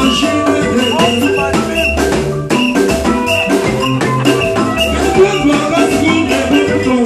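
Live Congolese band playing a Mutuashi dance rhythm: conga drums played by hand over electric bass and melodic lines, with a steady driving beat.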